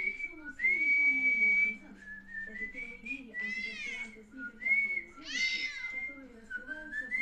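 A person whistling a tune in steady, held notes, while a cat meows back twice, about three and a half and five and a half seconds in.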